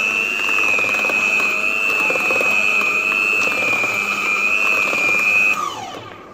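Electric hand mixer beating cake batter in a bowl, its motor giving a steady high whine. Near the end it is switched off and the whine slides down and dies away.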